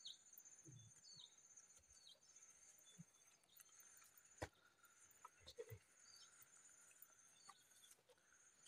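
Faint forest ambience: a steady high-pitched insect drone, with a bird giving short, high, falling chirps about once every second or two. A few faint clicks and soft thumps, with one sharper click about four and a half seconds in.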